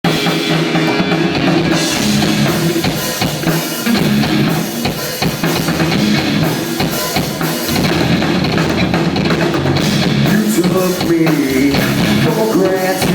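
Rock music intro with a full drum kit and bass drum, before the vocals come in.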